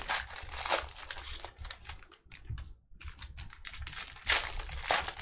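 Foil wrapper of a trading-card pack crinkling and crackling as it is torn open by hand, with sharper crackles about a second in and twice near the end.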